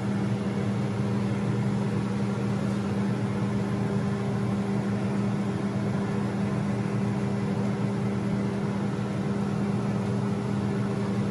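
Steady hum of a fan motor, with an even hiss underneath, unchanging throughout.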